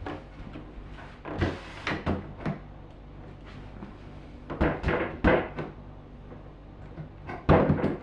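Irregular knocks, clicks and rattling scrapes as a model aircraft's rudder is pushed and worked onto its hinges on the fin. One scrape comes about a second and a half in, a cluster of knocks follows around five seconds, and the loudest rattle comes near the end.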